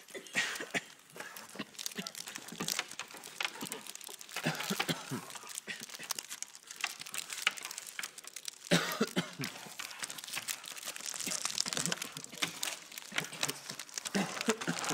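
Crinkling and rustling from handling a cardboard box with gloved hands, full of small clicks and crackles, with a few short murmured vocal sounds in between.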